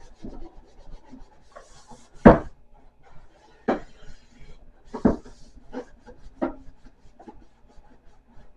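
Sponge scrubbing a crock pot with soap and water: rubbing and scraping, broken by several knocks as the pot is handled. The loudest knock is about two seconds in, and others come near four and five seconds.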